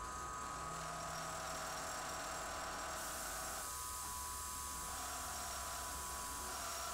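Milling machine running with a face mill on the spindle: a steady motor hum with a high whine held at a constant pitch, no breaks or changes in speed.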